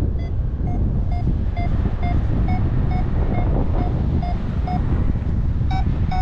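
A paragliding variometer beeping its climb tone, short pitched beeps about two a second that turn faster, louder and a little higher near the end as the climb strengthens, over steady wind rushing on the microphone in flight.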